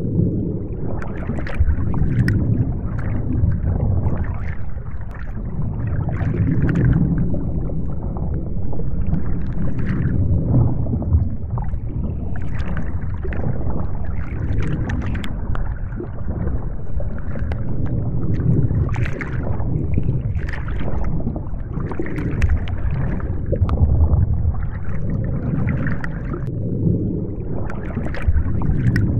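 Underwater-style water ambience: a steady low rush of water that swells and ebbs every couple of seconds, with faint scattered ticks on top.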